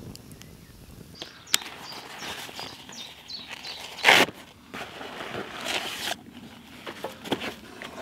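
Canvas bag and paper wrapping rustling as a wrapped joint of meat is pulled out by hand, with a sharp knock about a second and a half in and a loud rustle about four seconds in.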